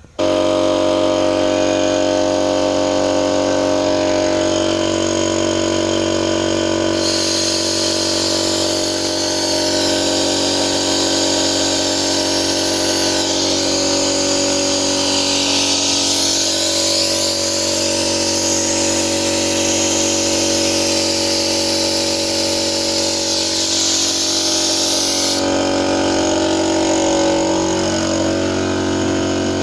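Steady mechanical running of a machine, starting suddenly, with a high hiss laid over it from about seven seconds in until about twenty-five seconds.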